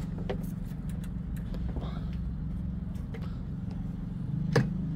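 An engine idling steadily, with a few light clicks and a sharper knock about four and a half seconds in.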